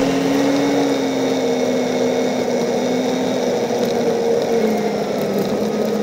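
An off-road vehicle's engine running steadily along a trail, its pitch easing slowly down.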